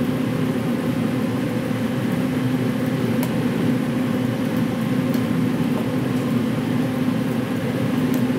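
Steady low hum of a commercial kitchen's ventilation fan, with a few faint clicks from metal tongs.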